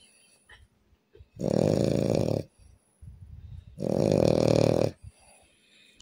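A man snoring loudly in his sleep: two long snores, each about a second, some two and a half seconds apart.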